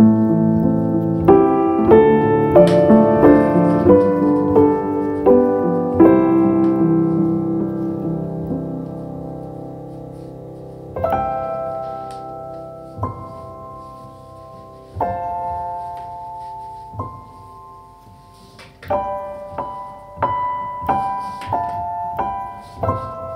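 Solo piano background music: a run of chords that fade away over the first ten seconds, then sparse single notes a couple of seconds apart, growing busier again near the end.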